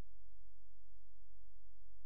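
Steady low hum with a faint hiss and no other sound.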